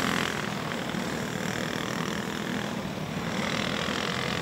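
A pack of clone-class go-kart engines droning together as the karts circle the dirt track under a caution flag.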